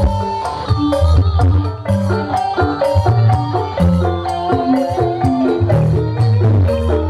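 Dangdut music played by a band through a large PA sound system: heavy steady bass, busy percussion, and a melody line that wavers in pitch around the middle.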